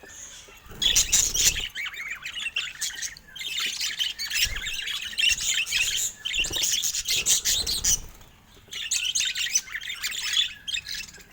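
Budgerigars chattering and warbling: quick high chirps and squawks in dense runs, broken by short pauses.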